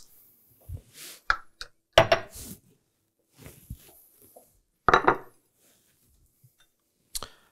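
Plates and a glass being handled and set down on a wooden cutting board: a string of separate clinks and knocks, the loudest about two and five seconds in.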